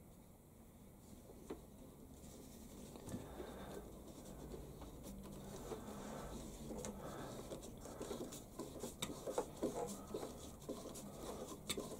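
Faint scratching and small clicks of a Silverline rotary tool's plastic nose being screwed by hand into a freshly cut internal thread in an aluminium adapter, a test fit of the thread. The ticks come more often in the second half.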